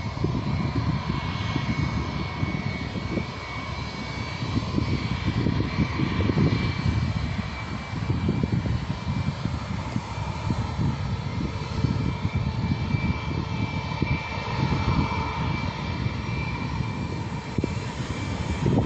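Jet airliner engines running on the ground: a steady whine at several fixed pitches over a fluctuating low rumble.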